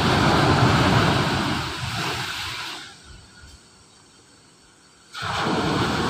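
Surf breaking and washing up a sandy beach: a loud rush of water that dies away about halfway through into a quiet lull, then cuts back in suddenly near the end.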